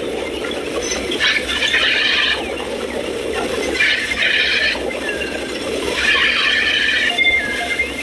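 Sawmill machinery squealing: a high, shrill squeal about a second long repeats roughly every two seconds over a steady lower running noise.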